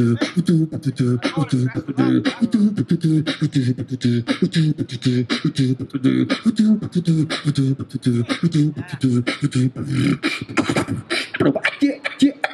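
Beatboxer performing live through a microphone and street amplifier: a fast, steady run of vocal drum hits over a low sung bassline that steps up and down in pitch.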